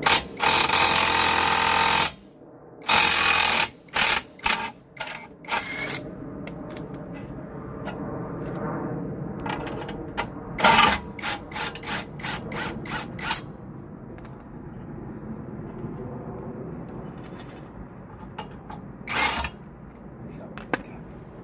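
Impact wrench hammering in short bursts and one longer two-second run, undoing the rear swing arm bolts on a VW Golf Mk5 R32.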